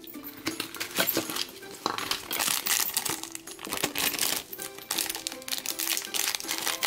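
Plastic packaging crinkling and rustling in the hands, in quick irregular crackles, over background music.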